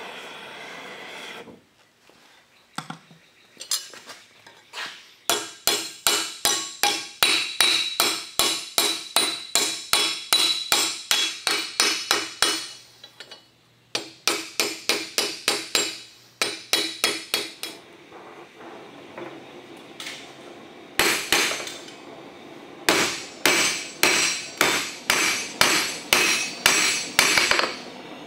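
Hand hammer striking hot steel on an anvil and a forging stake in runs of quick blows, about three a second, with a ringing tone carried over the strikes and short pauses between heats. At the start a gas torch hisses, then cuts off about a second and a half in.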